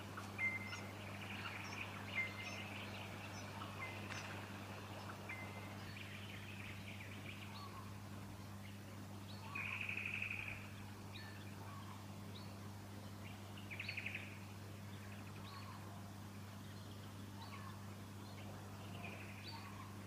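Small songbirds chirping with short, high notes throughout, and two louder buzzy trills, each about a second long, about ten and fourteen seconds in.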